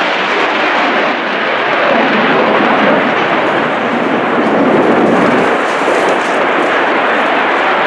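F-16 fighter jet's engine, a loud continuous roar of jet noise that swells a little about two seconds in and again about five seconds in.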